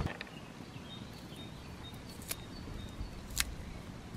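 Outdoor ambience with birds chirping: short, high whistled notes scattered throughout, and a few sharp clicks.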